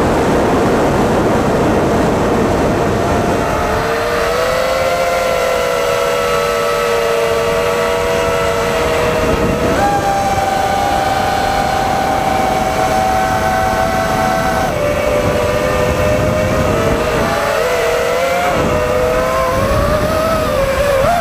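FPV quadcopter motors whining at several close pitches that shift together, stepping up about ten seconds in, dropping back a few seconds later and wavering near the end. The first few seconds are a loud rushing noise without the whine.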